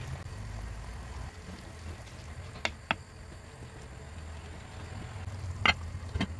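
A wooden spoon stirring in a pan of vegetables and water, with two sharp knocks against the pan about three seconds in. Near the end a glass lid is set down on the pan with a clink, over a low steady hum.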